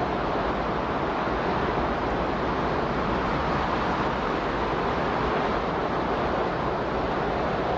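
Steady, even rushing noise with no swells or breaks: the masking background bed of a subliminal audio track.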